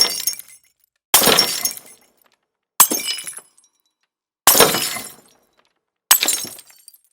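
Glass shattering sound effects played one after another: five separate crashes about a second and a half apart, each fading within about a second, with dead silence between them.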